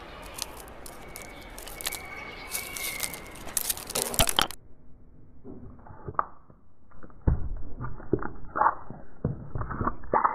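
Car tyre rolling slowly over tubes of toothpaste on paving, crushing them flat: a run of sharp cracks and crackles as the tubes burst and squirt out their contents. Before that, scattered light clicks as lollipops lying on the paving are handled.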